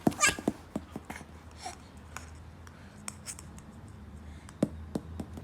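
Scattered sharp clicks and brief rustles of handling noise, with the loudest, sharp burst just after the start and a couple more clicks near the end.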